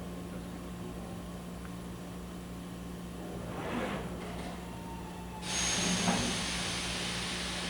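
Kitamura HX1000i horizontal machining center running with a steady hum; a brief swish about four seconds in, then a loud, even hiss starting about five and a half seconds in.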